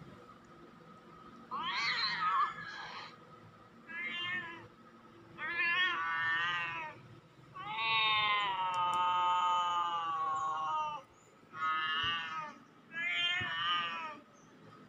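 Recorded cat meows and yowls played through a laptop's speakers: six drawn-out calls with pauses between them, the longest held for about three seconds near the middle.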